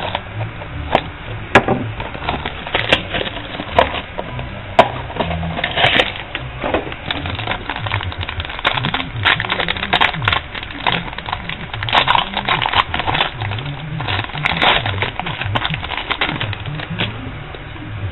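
Foil trading-card pack wrapper crinkling and tearing as it is opened by hand, in irregular sharp crackles that come thickest in several flurries.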